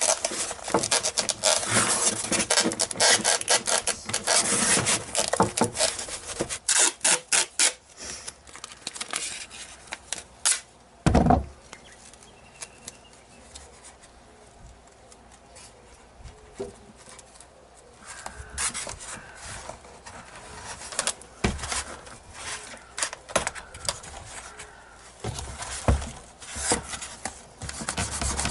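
Hands rubbing and handling a foam model airplane on a wooden table: dense scraping and rustling for the first several seconds, then quieter, with a single louder knock about eleven seconds in and scattered rubs and knocks after.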